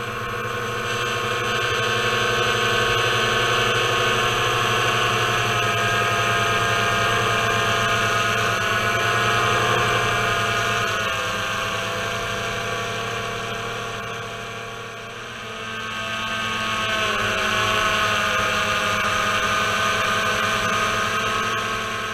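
Small quadcopter drone's electric motors and propellers whining, heard from the drone's own onboard camera, with several steady tones that waver in pitch as it manoeuvres. The sound dips about fifteen seconds in, then rises again.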